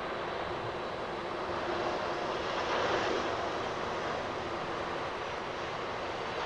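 Embraer E190-E2's Pratt & Whitney PW1900G geared turbofan engines as the jet passes low and touches down to land: a steady jet rush that swells to its loudest about three seconds in, then eases.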